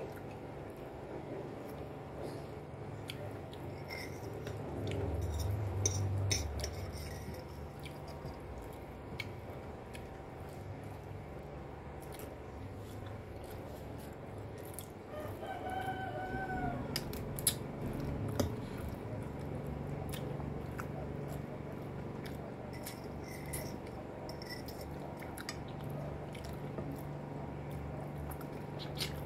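Eating sounds: a metal fork clinking and scraping on glass plates, and chewing, with a few sharper clinks a little past halfway. A rooster crows once in the background about halfway through.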